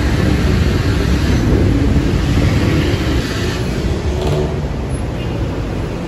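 Busy city road traffic: a steady, dense rumble of car engines and tyres.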